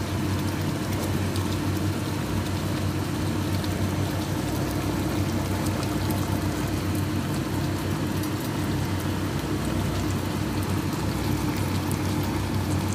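A pot of chicken adobo simmering on a gas stove, an even hiss over a steady low hum.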